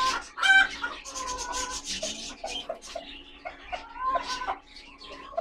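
Gold-laced Polish chickens clucking and calling. A loud, sharp squawk comes about half a second in, followed later by a run of short clucks and a longer call.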